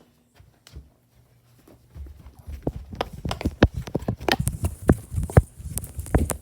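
Rapid, irregular knocking and tapping that starts about two seconds in and grows louder, over a low rumble.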